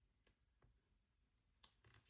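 Near silence: room tone with three faint clicks.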